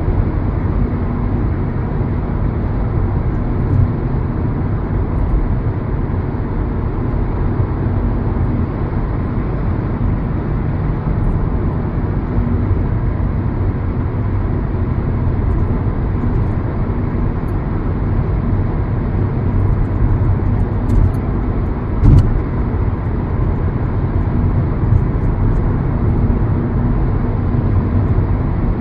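A car driving: steady engine hum and road noise, with a single bump about three quarters of the way through.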